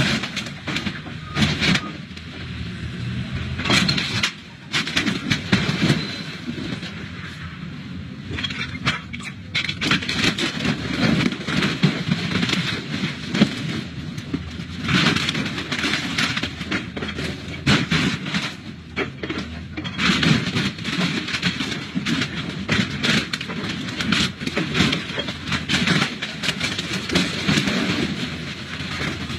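Hydraulic excavator's grapple crushing and tearing a helicopter's metal airframe: repeated crunching, scraping and clanking of metal over the steady drone of the excavator's diesel engine.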